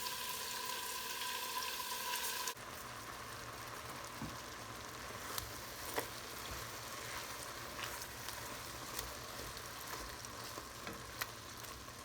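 Bite-sized chicken pieces sizzling and frying in olive oil in a soup pot as they brown, with a few light clicks. The hiss drops suddenly in level about two and a half seconds in.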